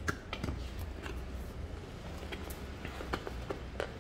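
Cardboard graphics-tablet box handled and opened by hand: a scattering of faint, light clicks and rustles as the end flap is opened and the box is slid out.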